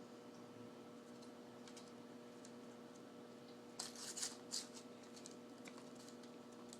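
A quick run of light clicks and crinkles about four seconds in: a cat pawing at a puzzle box to get candy wrappers out. A steady faint low hum runs underneath.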